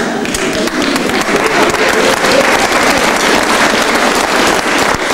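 Theatre audience applauding: dense, steady clapping from many hands.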